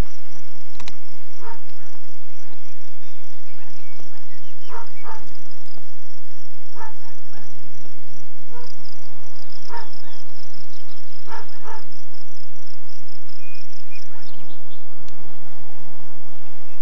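Insects chirping in a fast, even pulse, with short sharp animal calls every few seconds, some in quick pairs.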